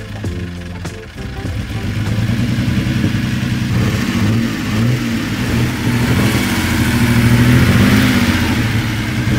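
Maserati A6GCS Barchetta's 2.0-litre straight-six racing engine running with the bonnet open, its throttle worked by hand at the carburettors. It grows louder after about a second, then its revs rise and fall in repeated blips.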